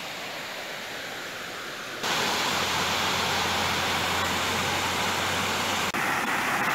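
Water pouring over a small concrete spillway of a pond: a steady rush, softer at first and much louder from about two seconds in.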